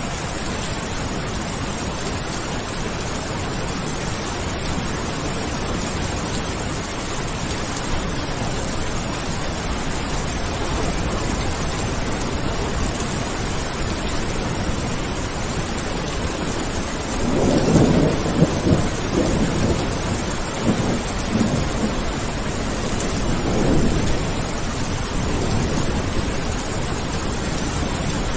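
Steady rain falling, with a roll of thunder building about two-thirds of the way through and a smaller rumble a few seconds after it.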